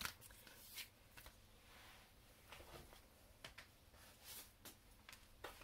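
Near silence with a few faint, short rustles and taps of paper sheets being handled and slid on a tabletop.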